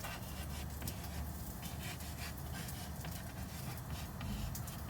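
Dog panting steadily in quick, repeated breaths, over a low steady hum.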